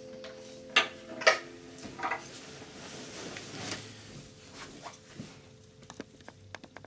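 The last guitar chord rings on and is cut off about a second in by two sharp knocks. A few more knocks and small clicks of handling follow, growing fainter near the end.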